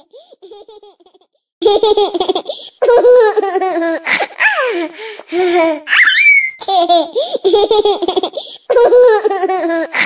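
Young child laughing in repeated high-pitched bursts, starting about a second and a half in, with one rising squeal about six seconds in.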